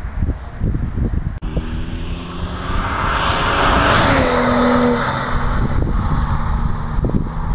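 A BMW 335i with a COBB Stage 1 tune and stock exhaust drives past, its turbocharged straight-six engine and tyres growing louder to a peak about four seconds in, then dropping in pitch as the car moves away. Wind buffets the microphone throughout.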